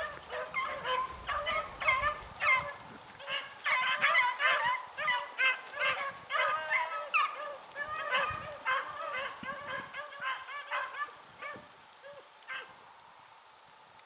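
A pack of beagles baying as they run a rabbit's track, many overlapping calls in quick succession that thin out and fade after about ten seconds.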